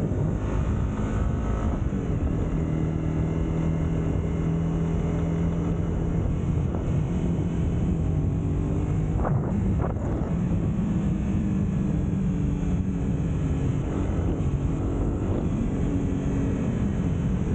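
Sport motorcycle engine running steadily while riding, under wind and road noise. The engine note shifts a little in pitch a few times, and two faint clicks come about nine and ten seconds in.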